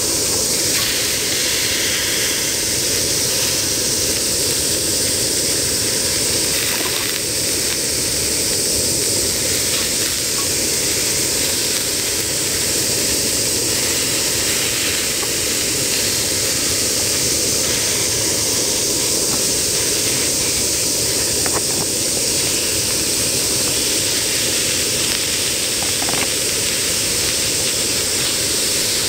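Lamb, onions and bean sprouts sizzling steadily on a hot jingisukan dome grill pan.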